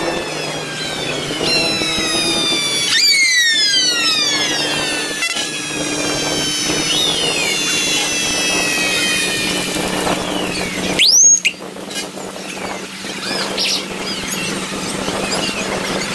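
Parade fire engine sirens wailing, several overlapping high pitched tones gliding down in pitch over a steady engine hum. A short, loud whoop sweeps up and back down about eleven seconds in.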